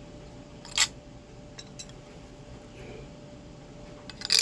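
Two sharp metallic clinks about three and a half seconds apart, with a few faint ticks between: a tool knocking against a brass trombone bell during dent work.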